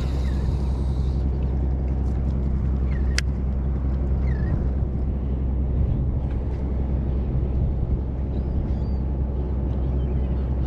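Boat motor running steadily with a low, even drone.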